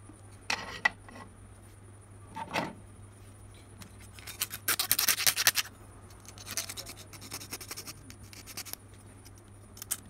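A flat hand file rasping against a small metal part in quick strokes. A few sharp clicks come in the first three seconds, then two long runs of filing.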